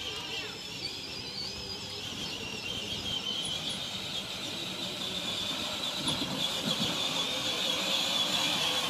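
Battery-powered Power Wheels Rhino ride-on toy driving over grass, its electric motors and gearboxes giving a steady high whine that grows louder as it approaches.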